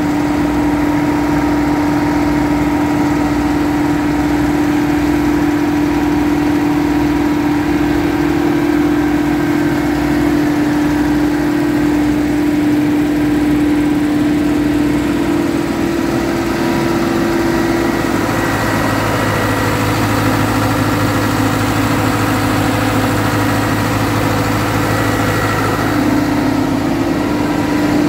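Powerscreen Chieftain 1700 three-deck tracked screen running, its diesel engine giving a loud, steady drone. A low pulsing throb runs through the first half, and a deeper steady hum comes in about two-thirds of the way through.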